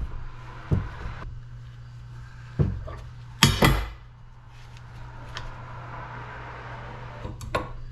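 Metal parts of a dismantled pressure washer motor clinking and knocking as they are handled: about half a dozen separate knocks, the loudest a quick pair about halfway through, over a steady low hum.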